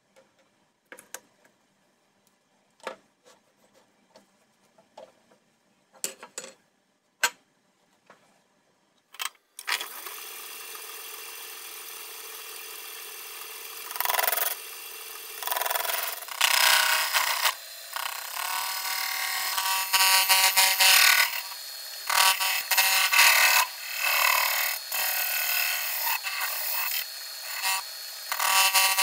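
Metal lathe turning a Land Rover wheel hub with its brake disc, sped up many times. A few scattered clicks and knocks of parts being handled come first. About ten seconds in, the lathe starts running with a steady hum, and from about fourteen seconds the cutting tool on the steel adds loud scraping bursts that come and go.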